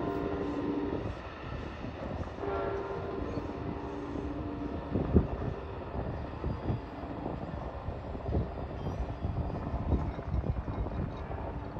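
A receding Amtrak train's horn sounds a steady chord that cuts off about a second in, then gives a short second blast about two and a half seconds in, over the fading rumble of the train. In the second half, irregular low thumps of wind buffet the microphone.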